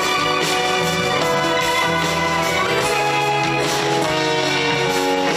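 Band music with guitar and drums, playing sustained chords over a steady beat.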